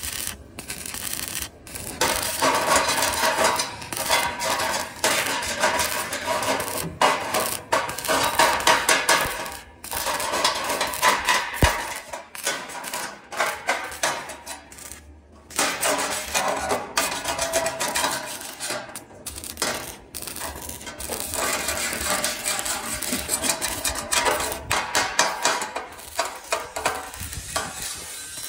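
Stick (arc) welding on galvanized square steel tubing: a steady crackling, sputtering arc that stops briefly several times between welds.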